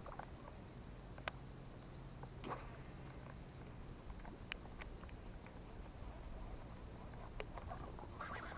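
Faint, steady high-pitched insect chorus, with a few light clicks scattered through it.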